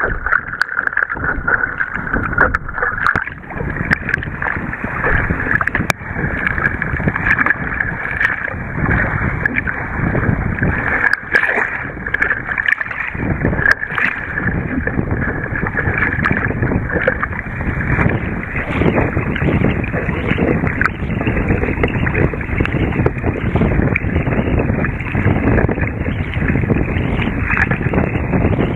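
Choppy water rushing and slapping along the hull of an Epic V8 surfski under way, with wind buffeting the microphone. Irregular splashes come from the paddle strokes and the chop.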